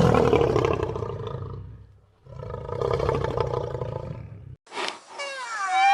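A big cat roaring: two long, rough calls, each about two seconds, with a short pause between them. Near the end a different animal gives a high, wavering whine.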